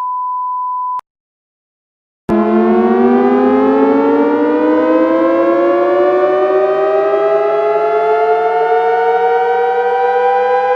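Emergency alert tone sequence: a steady one-second beep, a second or so of silence, then a wailing siren that starts abruptly and slowly winds up in pitch, in the manner of a civil-defence siren.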